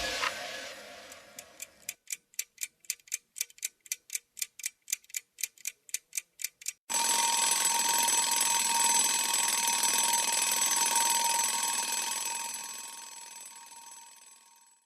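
An alarm clock ticking at about four ticks a second, then bursting suddenly into a continuous ring about halfway through, which fades away near the end.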